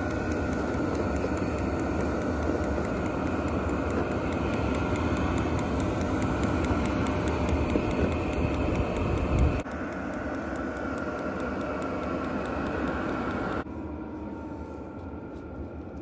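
Vevor diesel air heater running steadily while burning homemade biodiesel: the constant whirr of its blower and burner. The sound drops abruptly quieter about ten seconds in and again near fourteen seconds.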